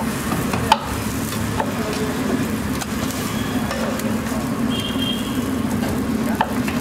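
Steady sizzling and hum of a street-food egg stall, with a few sharp clinks of a metal spoon against the enamel serving plate as green masala is spooned onto the omelette; the sharpest clink comes just under a second in, another near the end.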